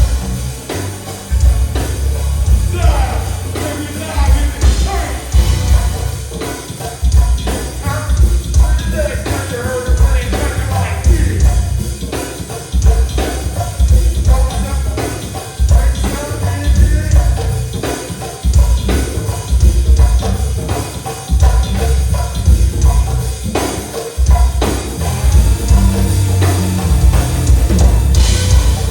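Band music: drum kit and heavy pulsing bass, with a voice singing over it.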